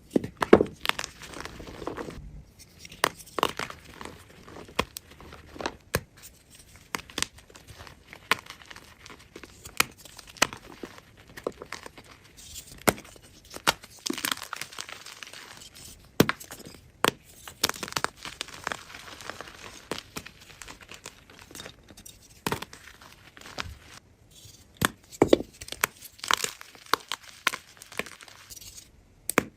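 A block of gym chalk (magnesium carbonate) being crushed: a dense, irregular run of sharp crunches, cracks and crumbling, with louder snaps every so often.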